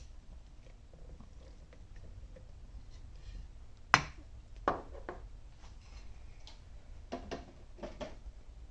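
Small sharp clicks and knocks from handling a picked Assa 700 lock and its picking tools: a sharp click about four seconds in, another a little under a second later, then softer clicks and rattles around seven to eight seconds.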